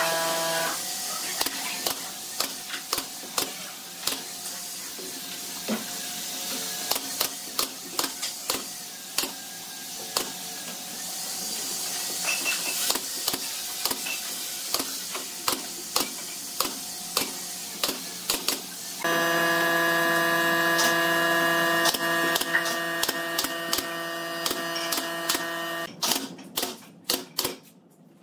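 Pneumatic nail gun firing nails into stacked pine pallet boards: a long run of sharp shots, about one or two a second, coming faster near the end. A steady mechanical hum joins in for several seconds past the middle.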